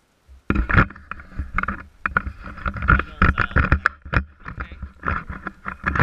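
Handling noise from the camera being picked up and carried: dense, irregular rubbing and knocking that starts suddenly about half a second in and stays loud.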